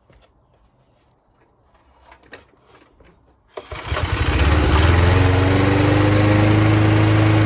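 Mountfield Empress 16 petrol lawn mower engine pull-started: a few light clicks and knocks, then about three and a half seconds in the engine catches at once on the pull, speeds up, and settles into steady running.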